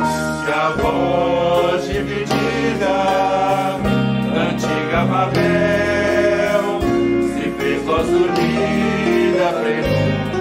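Mixed church choir singing a Portuguese worship song in harmony, backed by a band of piano, bass guitar, electric guitar and drums keeping a steady beat.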